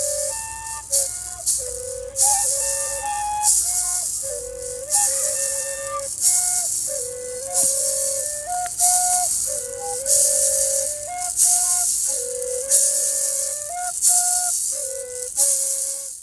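Long cane flutes playing a repeating melody of held notes together, over a maraca shaken in a steady beat.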